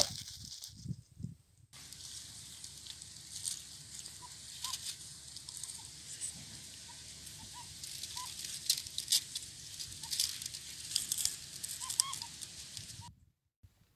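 A sharp knock right at the start, then dry fallen leaves rustling and crackling as fingers poke among them, with a few faint short chirps scattered through.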